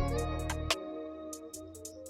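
Background music: sustained guitar-like notes over a bass line, with a beat that drops out partway through.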